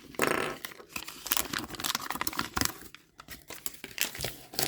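Paper crinkling and rustling in quick, irregular crackles as a folded Lego instruction booklet is handled and unfolded.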